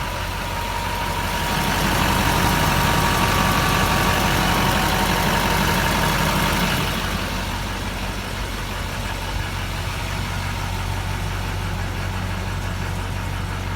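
A 6.6-litre Duramax turbo-diesel V8 in a medium-duty GMC truck idling steadily. It grows louder for about five seconds near the start, then settles back.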